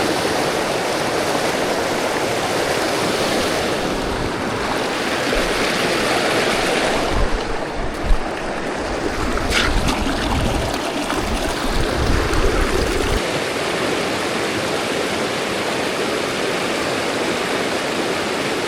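Steady rush of flowing river water, with some low rumbling partway through.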